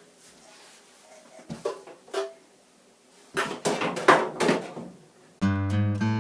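Faint clicks, then a short run of clattering knocks from dryer parts being handled during reassembly. Acoustic guitar background music starts abruptly near the end.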